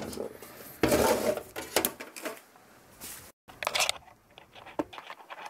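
Handling clatter on a workbench: the sheet-metal light fitting housing and hand tools being moved and set down, with a loud scraping rush about a second in followed by a string of sharp clicks and knocks.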